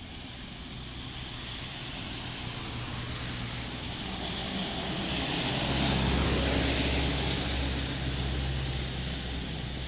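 A heavy road vehicle passing close by, its engine drone and tyre noise growing louder to a peak about six seconds in and then fading. No horn sounds.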